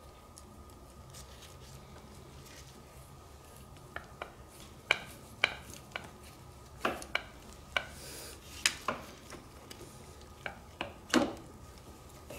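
A hand tool clicking and clinking against metal hose fittings and clamps on an ATV carburetor as the hoses are worked loose. It is quiet at first, then comes a scattered run of about a dozen sharp metallic clicks, the loudest near the end.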